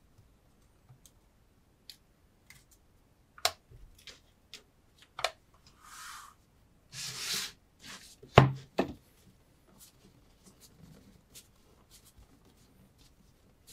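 Objects handled on a tabletop: scattered taps and clicks, two short rasping strokes around six and seven seconds in, and a sharp knock just after eight seconds.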